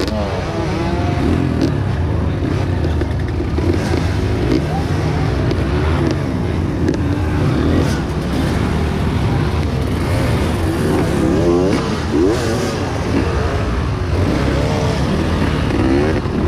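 Honda CRF230 dirt bike's single-cylinder four-stroke engine running hard, its pitch rising and falling over and over as the throttle is worked through the gears. A steady rushing noise runs underneath.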